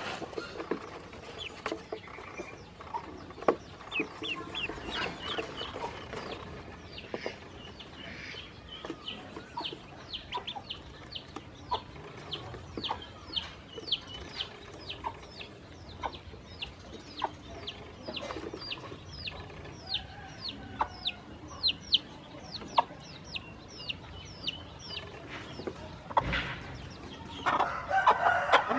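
Ducklings peeping: a steady run of short, high, falling peeps, about two to three a second, with a louder spell of noise near the end.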